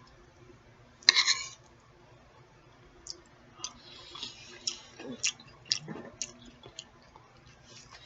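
A person eating close to the microphone: one short, loud noisy sound about a second in, then a run of wet mouth clicks and smacks while chewing.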